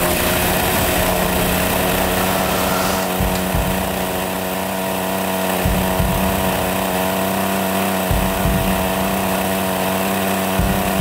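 Alpina two-stroke chainsaw idling steadily on its stand, with low thuds about every two and a half seconds.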